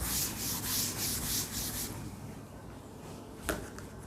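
Quick back-and-forth rubbing strokes on a writing surface, about four a second, stopping about two seconds in. A single sharp tap follows near the end.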